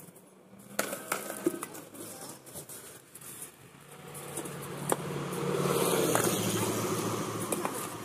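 Shovel scraping and knocking as soil and debris are shoveled into a rubber basket, over a steady engine hum that grows louder to a peak about six seconds in and eases off near the end.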